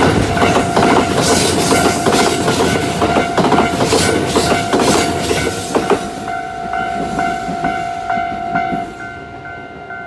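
Kintetsu Nagoya Line electric train passing over a level crossing: wheels rumbling and clacking over the rail joints for about six seconds, then fading as it clears. A level-crossing warning bell rings throughout in a rapid, even clang, heard plainly once the train has gone.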